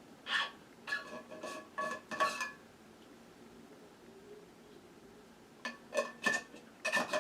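Light clinking of tableware, a few quick ringing clinks at a time: one flurry in the first couple of seconds and another near the end, with a quiet gap between.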